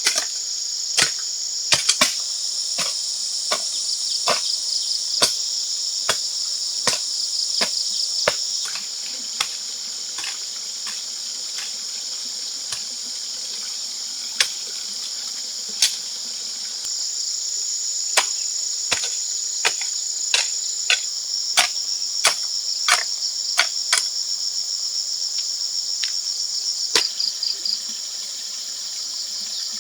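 Steady high-pitched insect chorus, crickets or cicadas, with irregular sharp knocks over it, one or two a second, fewer between about ten and fourteen seconds in.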